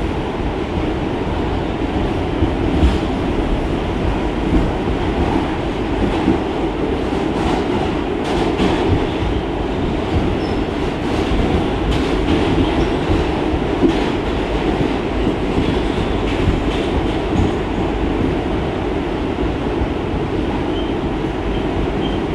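New York City Subway N train running at speed: a steady low running noise of wheels on rail with irregular sharp clicks over the rail joints. There are a few faint, brief high squeaks near the end.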